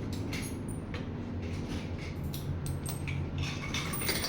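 Light clatter of kitchenware: scattered short clicks and knocks of dishes and utensils being handled, over a steady low hum.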